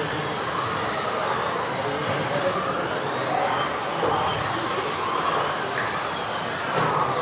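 Several electric 1:10 off-road RC buggies racing on an indoor carpet track: high-pitched motor whines rising and falling with the throttle, over a steady hiss of the cars running, echoing in the hall.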